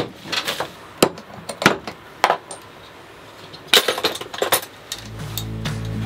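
Metal hand tools clinking and rattling in a tool case as they are sorted by hand, a string of sharp separate clicks at irregular intervals. Music fades in near the end.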